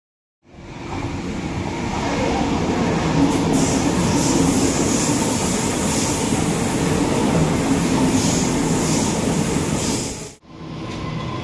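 Sydney Trains double-deck electric suburban train running past along the platform, with wheel-on-rail noise, rising in loudness over the first couple of seconds and then holding steady. It cuts off suddenly about ten seconds in, giving way to a quieter steady hum with a faint steady tone from another train at the platform.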